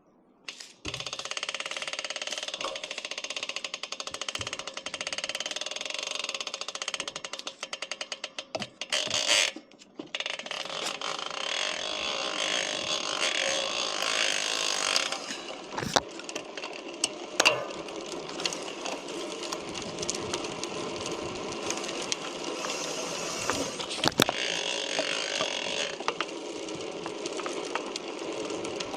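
Chris King R45D rear road hub spinning with a fast, continuous ratcheting buzz from its freewheel, with a few sharper snaps standing out. The hub is making its abnormal crackling ("バキバキ") noise, which came back after its internals had been replaced once. The sound stops briefly around a third of the way in, then resumes.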